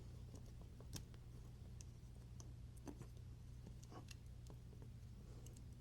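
Near silence with faint, scattered small clicks, a dozen or so, from the parts of a folding knife and small hand tools being handled as the knife is taken apart.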